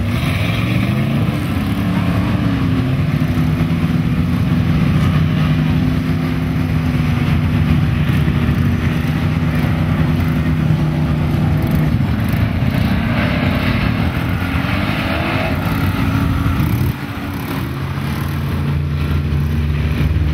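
Lifted four-wheel-drive mud truck's engine rising in pitch as it pulls away, then running at a steady pitch, with the revs shifting up and down midway. About three-quarters through, the sound cuts to a different truck engine running at a lower, steady pitch.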